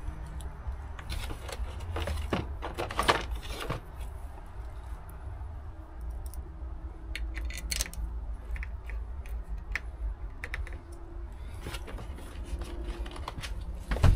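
Irregular small clicks and taps from hands fitting and turning the dial and trim of an Aquor hot-and-cold wall hydrant. They come thickest about one to four seconds in and again around the middle, over a steady low rumble.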